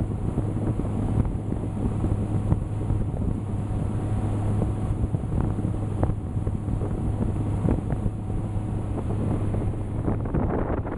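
Glastron Carlson CV16SS speedboat under way, its Volvo engine running at a steady cruising speed with a constant low drone. Wind buffets the microphone over the rush of water from the hull and wake.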